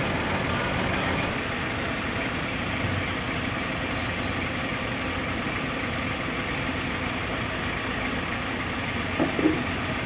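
Heavy diesel engine idling steadily, with a couple of short, sharper sounds near the end.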